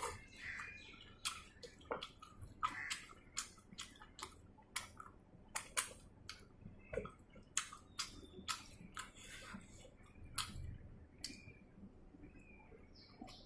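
A person chewing chicken close to the microphone: a run of sharp wet mouth clicks and smacks, about one or two a second.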